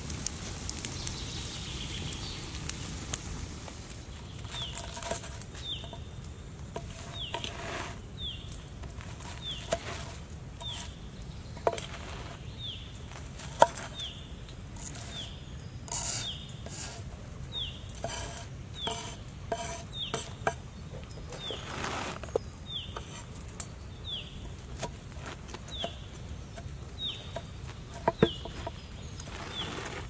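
Open fire crackling under a cast-iron skillet for the first few seconds. Then a knife cuts a baked cake on a wooden board, with scattered sharp knocks, loudest about a third of the way in and near the end. Throughout, a bird repeats a short falling chirp about once a second.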